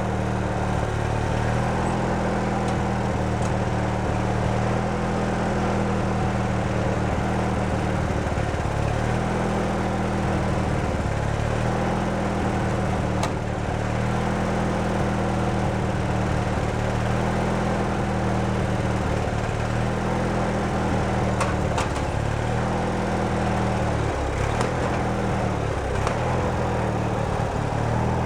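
Riding lawn tractor's small engine running as it is driven, its speed dipping briefly several times and recovering, with a few faint clicks.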